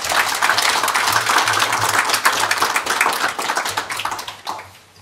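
Audience applauding, thinning out and dying away about four and a half seconds in.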